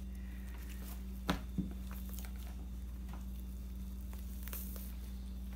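Steady low hum of room tone, with a sharp click about a second in and faint soft handling sounds as the skin of a snow goose is peeled off the carcass by hand.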